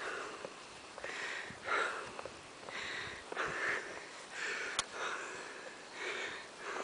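A man's heavy, wheezy breathing, a breath in or out about every half second to second: he is out of breath, his lungs knackered. A single sharp click about two-thirds of the way through.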